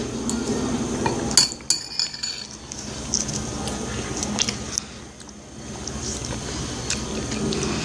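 A spoon clinking and scraping against an ice cream dish, with a quick cluster of sharp clicks about a second and a half in. A steady hum runs underneath.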